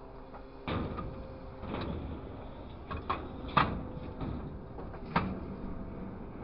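Engine of a scrap grapple crane running, picking up under load about a second in as the boom works, with a few sharp metal clanks.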